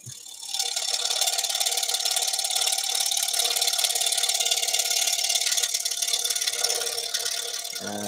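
Scroll saw cutting thin wood: the reciprocating blade makes a fast, even rasping chatter that starts about half a second in and eases off a little near the end.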